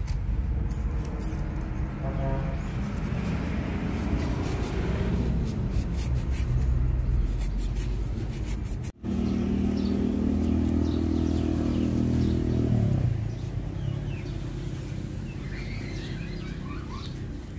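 Low rumble of an engine running, with a brief dropout about halfway through followed by a few seconds of steadier, louder hum before it eases off.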